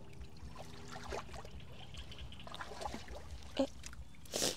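Shallow canal water stirred by hands and wading feet feeling for freshwater snails: faint trickling and small splashes, with one short, louder splash near the end.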